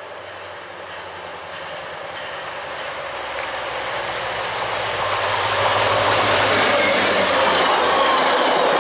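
Passenger train of bilevel cars approaching and passing close by: a rush of wheel and rail noise that grows steadily louder over about six seconds, then holds as the cars go by.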